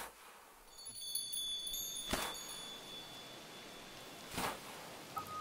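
Chime sound effects in a teaser soundtrack: a hit at the start, then high, sparkling chime tones about a second in. Two brief swells of noise follow, and lower chime notes begin near the end.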